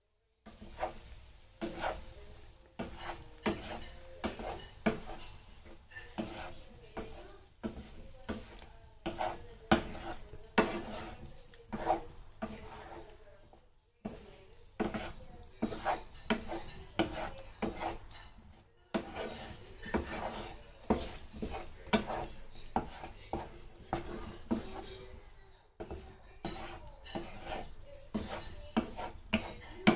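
Wooden spatula stirring cubed squash in a frying pan, knocking and scraping against the pan many times over the sizzle of the simmering sauce.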